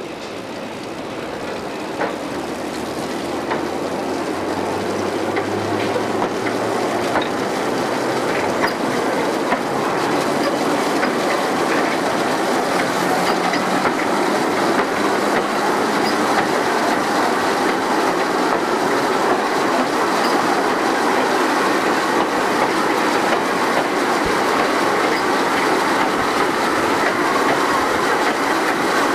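Hythe Pier Railway's small electric train running along the pier track, its wheels rattling on the rails. It grows louder over the first several seconds, then runs steadily.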